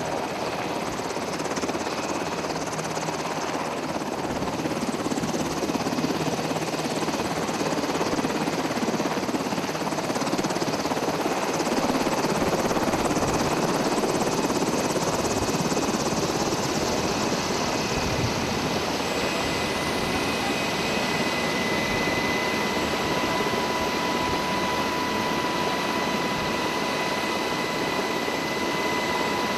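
UH-60 Black Hawk helicopter running close by: a steady rush of rotor and turbine noise. A steady high whine comes in about two-thirds of the way through.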